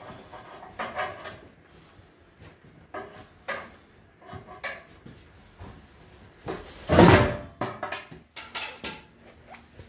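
Intermittent knocks and clatter of hand tools and metal parts during work on a car's exhaust, with the loudest clank about seven seconds in.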